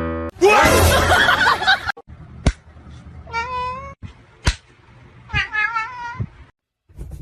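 A cat meowing twice: two drawn-out, wavering meows about two seconds apart. A loud, rough, noisy burst comes just before them, and there are a couple of sharp knocks.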